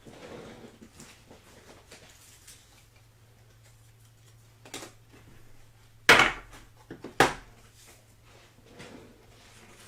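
Two sharp knocks about a second apart, with a smaller click shortly before, over a steady low electrical hum.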